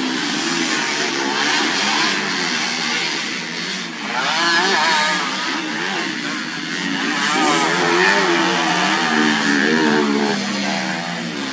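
Several racing motorcycle engines revving up and down together as they accelerate out of corners and back off. Their pitches overlap and waver, swelling louder about four seconds in and again toward the end.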